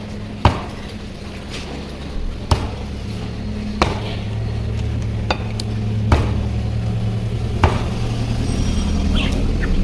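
Butcher's cleaver chopping through chicken on a chopping block: about six sharp strikes, one every second or two, over a steady low hum.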